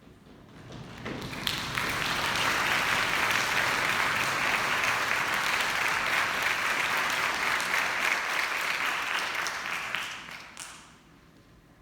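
Audience applause that swells up over the first second or two, holds steady, and dies away near the end.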